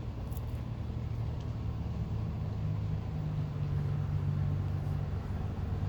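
A big delivery truck's engine running close by, a steady low rumble; a stronger hum joins in about two and a half seconds in and eases off near the end.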